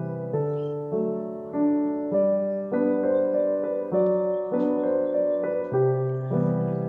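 Background piano music: a gentle keyboard melody with a new note or chord struck about every half second to second.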